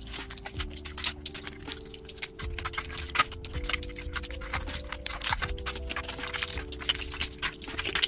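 Supplement capsules and tablets clicking and rattling against a hard plastic pill organizer as they are dropped into its compartments, with small clicks from its hinged lids: many quick, irregular clicks. Soft background music with sustained notes runs underneath.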